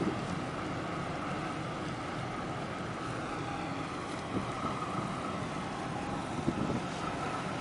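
Wind on the microphone over the steady engine drone of a harbour tug and container ship, with a faint steady whine, as the tug assists the ship in berthing.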